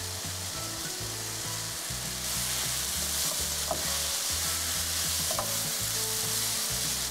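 Sizzling in a hot stainless frying pan as cooked quinoa is stir-fried into tomatoes, paneer and spinach with a wooden spatula. The sizzle grows louder about two seconds in, once stirring gets going.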